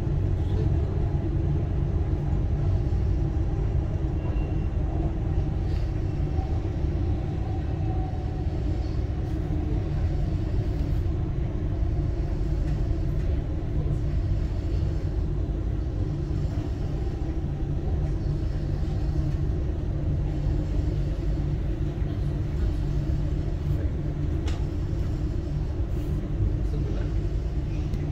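Dubai Metro train running between stations, heard from inside the carriage: a steady, deep rumble of wheels and running gear, with a few faint clicks.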